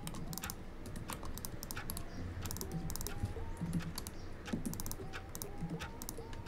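Typing on a computer keyboard: quick, irregular keystrokes clattering on.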